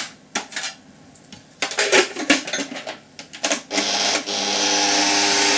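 Plastic clicks and knocks as the bowl and splash guard are fitted on a Bosch stand mixer, then about four seconds in its motor starts and runs steadily, whisking egg whites stiff.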